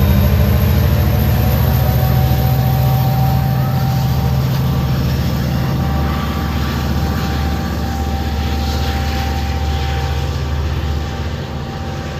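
Diesel locomotive engine running with a low, steady drone as the train moves off, slowly fading away.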